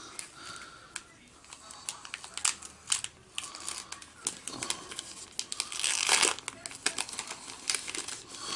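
Foil wrapper of a Pokémon trading-card booster pack crinkling and crackling as it is handled and torn open, with the loudest rip about six seconds in.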